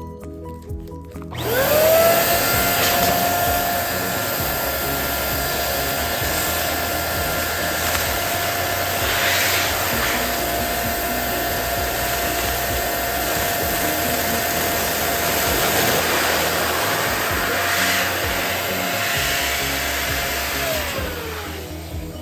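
Electric balloon inflator pump switching on about a second in, spinning up to a steady whine and running to fill a balloon. Near the end it winds down in pitch as it is switched off.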